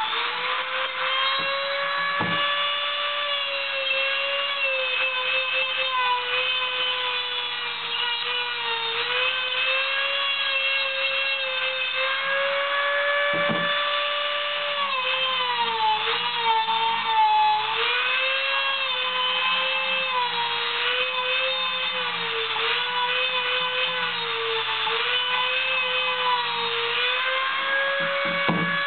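Dremel rotary tool with a cutoff wheel running at a high whine, its pitch sagging and rising again as the wheel is pressed into and lifted from the metal corner of a hard drive to cut it open. A few light knocks sound along the way.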